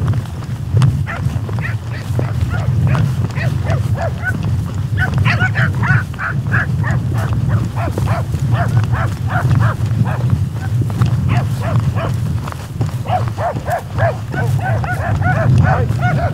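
Tracking dogs barking and yelping over and over, the calls coming thick and fast from about five seconds in, over a steady low rumble.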